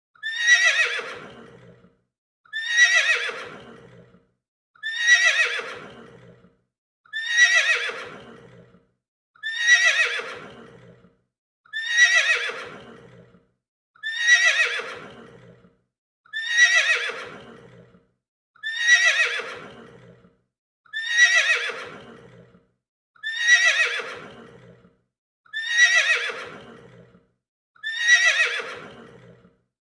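Horse neighing: the same whinny repeats about every two seconds. Each call starts high, falls in pitch and fades away, a single neigh looped over and over.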